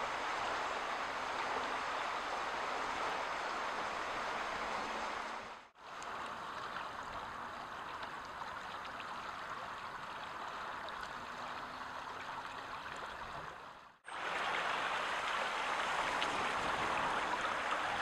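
Shallow chalk stream flowing and rippling: a steady rush of water. It is cut off twice, about six and fourteen seconds in, and the middle stretch is quieter than the first and last.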